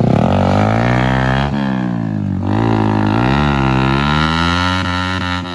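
Motorcycle engine revving, its pitch sweeping down and up several times, with sudden drops about one and a half and two and a half seconds in.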